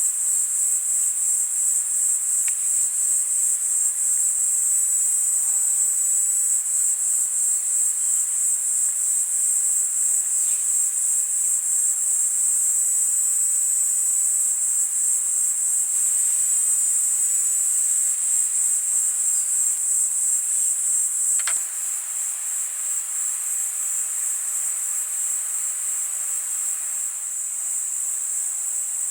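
Insects trilling in a steady, high-pitched, rapidly pulsing chorus. A single click comes about two-thirds of the way through, after which the trilling is a little quieter.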